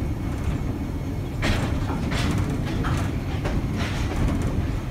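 Air-electric PCC streetcar running along the track, heard from the cab: a steady low rumble, with a string of sharp clicks and knocks starting about a second and a half in.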